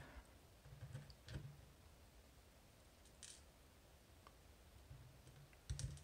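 Near silence broken by a few faint, short clicks and light taps of fine steel tweezers handling tiny magnetic lock pins and springs. The most distinct tap comes just before the end.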